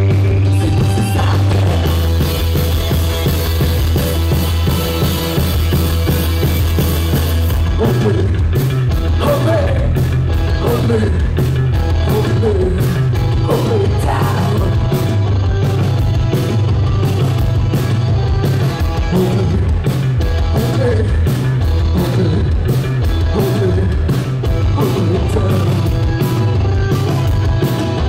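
Post-punk band playing live, heard from the audience: a held low bass drone for the first eight seconds or so, then the drums come in with a steady driving beat under electric guitars and singing.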